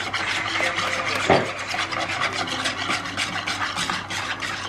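Eggs being beaten in a bowl: rapid, even scraping strokes of the utensil against the bowl, about eight a second, with one louder knock about a second and a half in.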